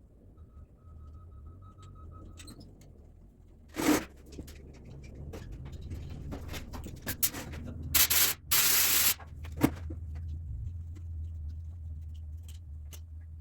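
Hand tools and engine parts being handled: scattered clicks and scrapes, with a short loud burst of noise about four seconds in and a longer, louder one around eight to nine seconds in, over a low steady hum.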